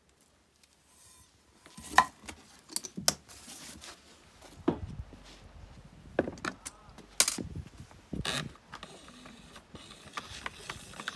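A string of separate metallic clinks and knocks, about one a second after a near-silent start: a galvanized metal bucket of sand clanking on its wire handle and being set down on wooden boards.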